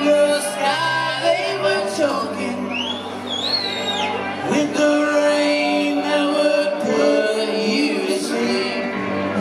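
Live rock band playing: electric guitar and sung vocals, with a few high sliding notes about three seconds in.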